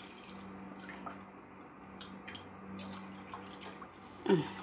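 Milk being poured into a pan, a faint liquid trickle with a few light clicks.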